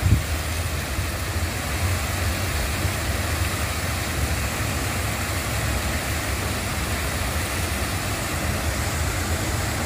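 Steady rushing of water from stone cascade waterfalls spilling into a pond.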